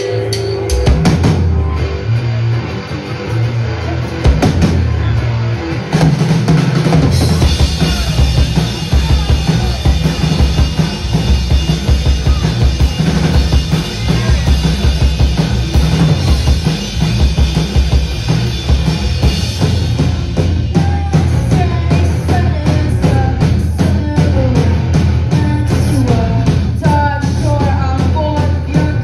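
Live rock band playing loudly: electric guitars, electric bass and a drum kit, the full band kicking in about six seconds in. A woman's singing voice joins over the band in the last third.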